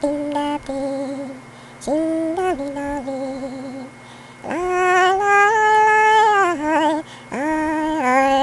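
A voice sings a slow melody in held notes with vibrato, sliding up into each note. The longest note, held about two seconds in the middle, sits a little higher than the rest.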